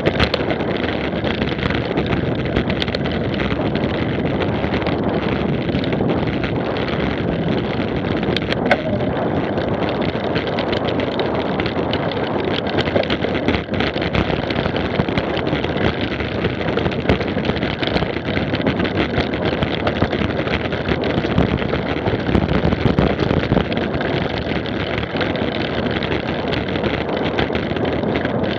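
Wind rushing over the microphone of a camera riding on a mountain bike on a dirt and gravel track, mixed with tyre noise and scattered small clicks and rattles from the bike over the rough ground.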